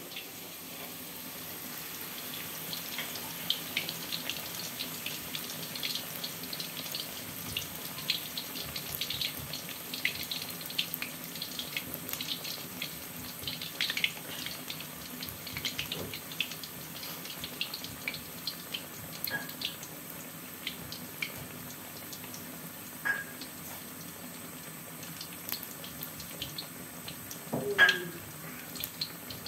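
A block of tempe deep-frying in a wok of hot oil: steady sizzling with dense crackling and popping that thins out in the second half. A brief, louder sound stands out near the end.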